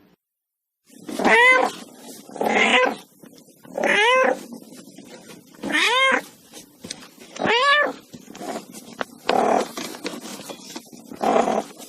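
Domestic cat meowing repeatedly: seven calls starting about a second in, spaced roughly every one and a half to two seconds. Some are clear meows that rise and then fall in pitch, others are rougher and noisier.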